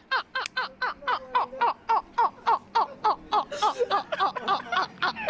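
Men laughing hard: a rapid, even string of 'ha' bursts, about five a second, each falling in pitch.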